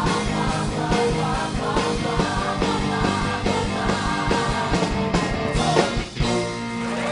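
Rock music from a stage musical, a band with a steady drum beat and some singing; about six seconds in the beat breaks off and a chord is held.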